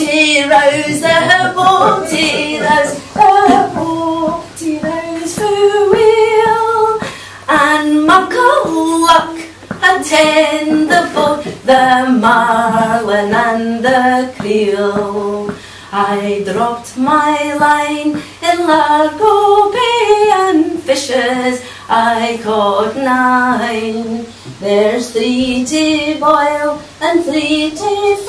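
A woman singing a slow melody of held notes, one voice carrying the tune.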